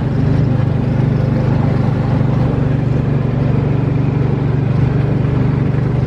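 Small engine of a ride car running steadily at a constant cruising speed, a loud even hum with a fast regular pulse, heard from aboard.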